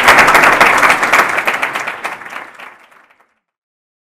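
Audience applauding, a dense patter of many hands clapping that fades and ends abruptly about three seconds in.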